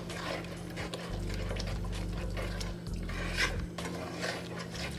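A cooking utensil scraping and clicking against a pan as food is stirred, in irregular strokes over a steady low hum.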